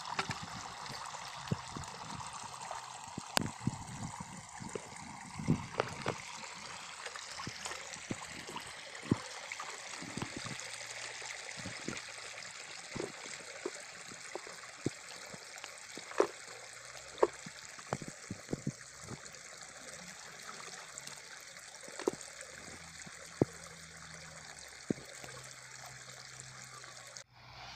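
Water splashing and running as a small pond is bailed out by hand with a plastic bucket to drain it for fish: a steady rush of water with frequent short, sharp splashes and knocks.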